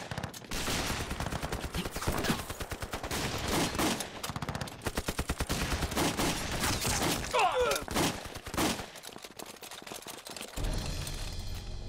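Film gunfight: dense, rapid gunfire from rifles and pistols, many shots a second, easing off near the end.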